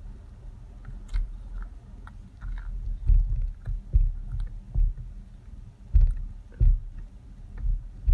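A spatula stirring thick hot-process soap paste in a crock pot, with irregular soft thuds and scraping as it is dragged through the batter and knocks the pot, while cocoa butter and shea butter are mixed in to melt.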